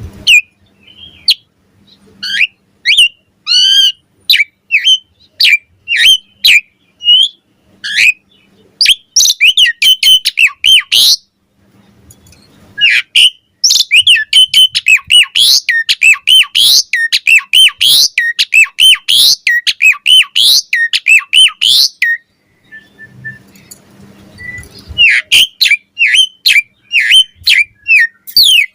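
Asian pied starling (jalak suren) singing in full voice: long rapid runs of whistles, chirps and harsh notes, broken by short pauses about 12 seconds and 22 seconds in.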